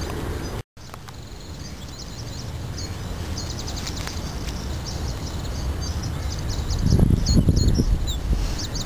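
Small songbirds chirping and calling over and over, high and thin, over a low outdoor rumble that grows louder about seven seconds in.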